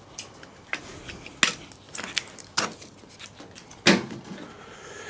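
Irregular clicks and knocks of small parts and wire being handled while clearing wire from a dismantled server power supply, with the loudest knock about four seconds in.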